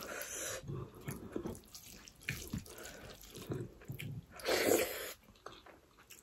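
Wet squelching and smacking as a hand mixes rice with red lentil dal on a plate and carries it to the mouth, eaten by hand. A louder wet mouth noise comes a little past halfway as a handful goes into the mouth.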